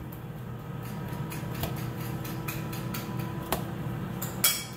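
Kitchen knife slicing thick zucchini sticks and knocking on the cutting board: a few separate knocks, the loudest near the end, over a steady low hum.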